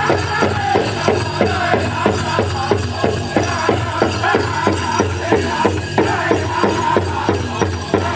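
Powwow drum group singing over a fast, steady beat on a big drum, accompanying a chicken dance contest song.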